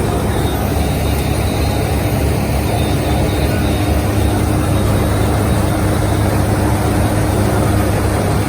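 John Deere X9 combine harvester running: a steady low engine rumble, with a faint steady hum joining about a third of the way in.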